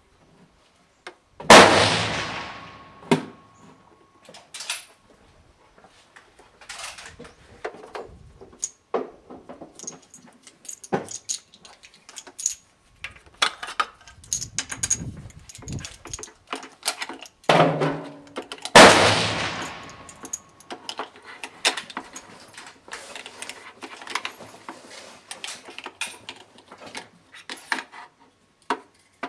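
Two rifle shots from a .308 Winchester Tikka T3 Varmint, about seventeen seconds apart, each a loud crack with a long fading tail. Lighter clicks and knocks fall between them.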